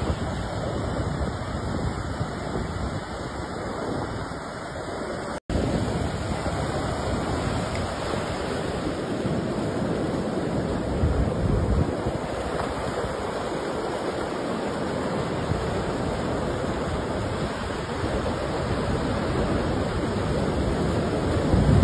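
Ocean surf breaking on a beach, a steady wash of wave noise, with wind buffeting the microphone in low rumbles. The sound cuts out for an instant about five seconds in.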